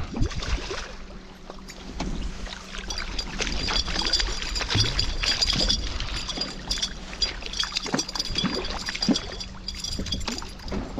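A small northern pike splashing and thrashing at the surface beside the boat as it is reeled in, with water slapping against the hull and many short clicks. A steady low hum runs underneath, and a thin steady whine joins a few seconds in.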